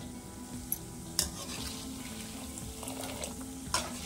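Cashew nuts deep-frying in hot oil in a kadai, a steady low sizzle, done to a light golden colour and ready to come out. A wire spider skimmer knocks against the pan twice, about a second in and near the end, as it scoops through the oil.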